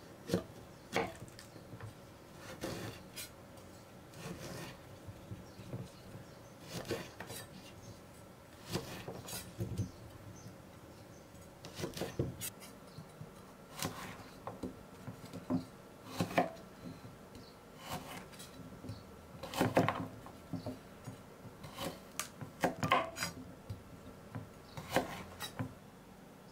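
Kitchen knife cutting burdock root into angled chunks on a wooden cutting board: irregular sharp knocks of the blade striking the board, sometimes one at a time and sometimes in quick clusters of two or three.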